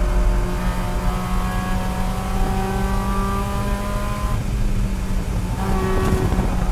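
Race car engine heard from inside the cabin, running hard at high revs, its pitch climbing steadily for about four seconds. It eases off briefly, then pulls again, with a short knock near the end.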